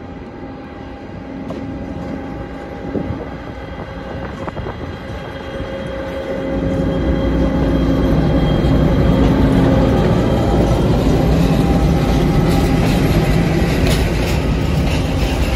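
Captrain class 601 locomotive hauling container flat wagons, approaching and passing close by: a steady hum with a few held tones, rising about six seconds in to a loud, low rumble of the locomotive and its wheels on the rails.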